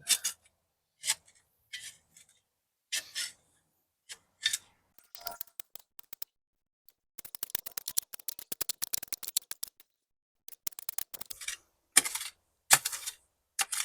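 A shovel digging and scraping through soft, damp dirt in short separate strokes, with a denser stretch of gritty crackling in the middle as loosened dirt is shifted.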